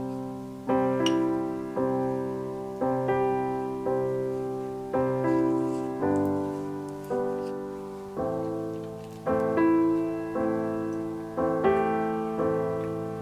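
Background piano music: slow chords struck about once a second, each one dying away before the next.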